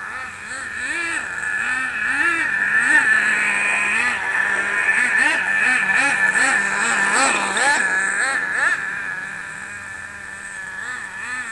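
Nitro RC sprint car's .15 cubic inch Force glow engine running with a high-pitched whine that rises and falls again and again as the throttle is worked. The engine is on its break-in tank and running rich.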